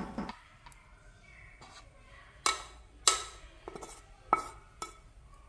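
Spatula scraping and tapping a nonstick frying pan as food is pushed out onto a ceramic plate: a handful of short clinks and scrapes, the loudest about three seconds in, with quiet between them.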